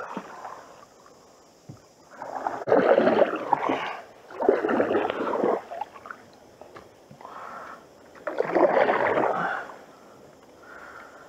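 Canoe paddle strokes through the water. There are three loud strokes a couple of seconds apart, with fainter ones between them.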